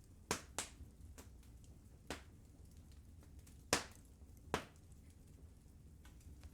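Wood fire burning in a fireplace, crackling: a handful of sharp pops, the loudest a little under four seconds in, over fainter ticks and a low steady rumble.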